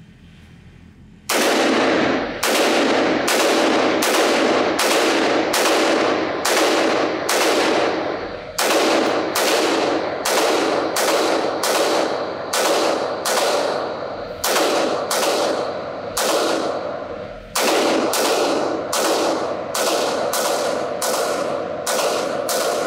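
AR-15 rifle fired semi-automatically in a steady string of shots, about two a second, starting a little over a second in, each shot ringing off the walls of an indoor range. The string pauses briefly twice.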